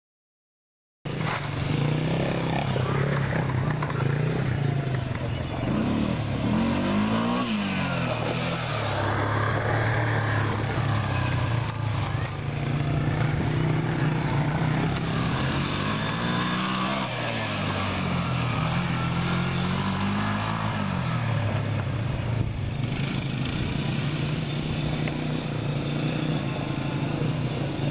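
Small off-road engines of a dirt bike and quad running, starting abruptly about a second in; a steady engine note holds throughout while the pitch rises and falls three times as an engine revs up and eases off.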